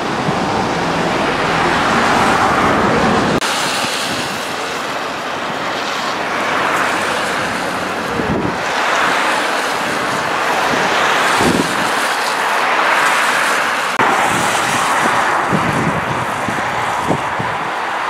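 Steady rushing noise of wind and fast-flowing floodwater, with gusts now and then buffeting the microphone. The sound shifts abruptly twice.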